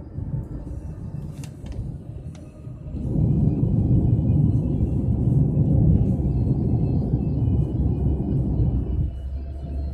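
Taxi's road and engine rumble heard from inside the cabin. It swells louder about three seconds in and eases back near the end.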